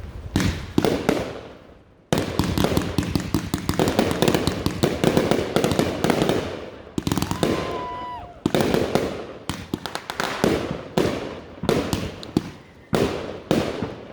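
Fireworks going off: a few booms, then from about two seconds in a dense, rapid barrage of bangs and crackling that keeps coming in bursts. A short steady whistling tone is heard about halfway through.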